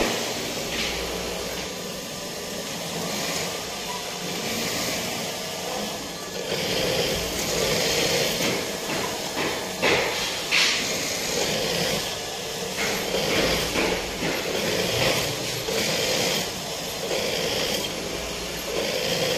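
Juki industrial sewing machine running in spurts as a fringe border is stitched onto a blanket-cloth bedsheet, over a steady background hiss, with a few sharp clicks about ten seconds in.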